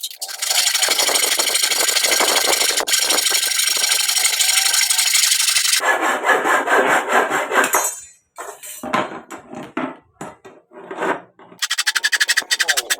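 A saw cutting through wood: one long continuous cut for about five and a half seconds, then a rougher stretch, then shorter broken passes with brief pauses.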